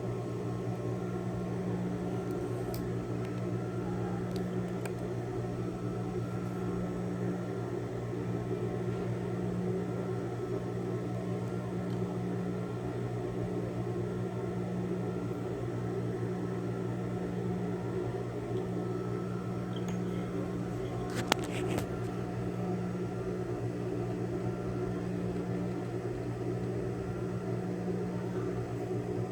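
Steady electric hum, like a fan or small motor running, with a short cluster of clicks about 21 seconds in.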